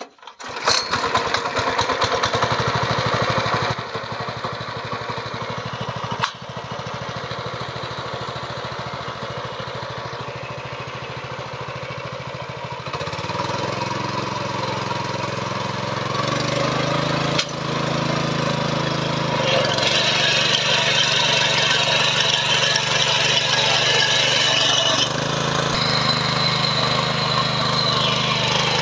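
Small engine of a Birla power weeder (rotary tiller) starting up abruptly and running. About halfway through it revs higher in steps and grows louder as the rotary tines work the soil.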